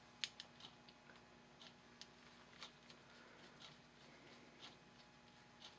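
Near silence: room tone with faint, light clicks, about one a second.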